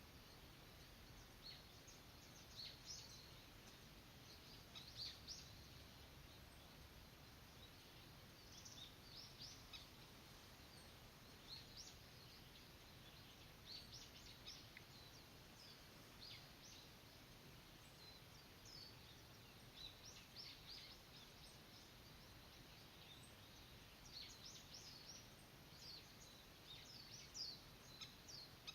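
Faint bird calls: many short, high chirps scattered through, in loose clusters, over a steady low background hiss.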